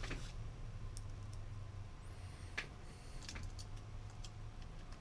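A few scattered light clicks and ticks of a screwdriver and small screws being handled on a carbon-fibre quadcopter frame, the sharpest about two and a half seconds in, over a faint steady low hum.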